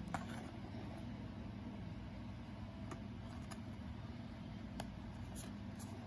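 Small cardboard toy boxes being picked up and handled: a few light taps and clicks of cardboard, the sharpest just at the start, over a steady low background hum.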